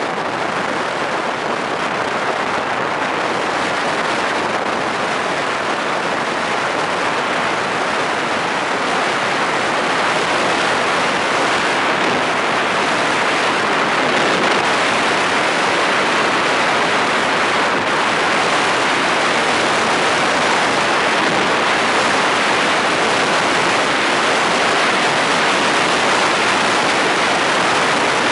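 Steady rush of wind on the microphone mixed with tyre noise on asphalt as an unpowered downhill racing cart rolls at speed, with no engine. It grows a little louder about nine seconds in as the cart picks up speed.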